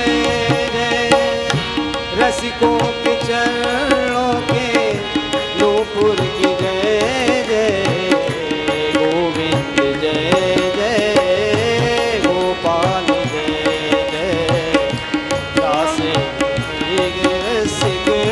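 Indian devotional background music with tabla drumming under a melody line, an instrumental passage between sung verses.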